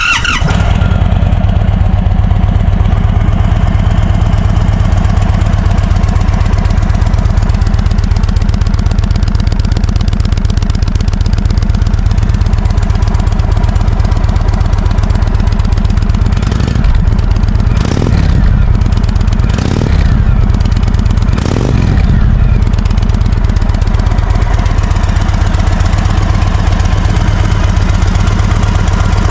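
Indian Thunderstroke 116 V-twin motorcycle engine idling with a steady, loud, lumpy pulse, blipped a few times about two-thirds of the way through, then settling back to idle.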